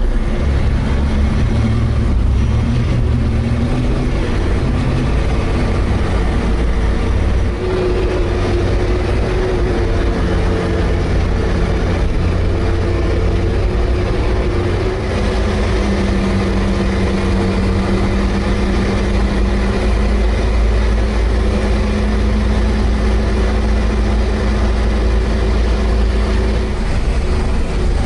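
Diesel engine of a Sherp all-terrain vehicle running steadily under load while driving, its pitch shifting now and then with engine speed.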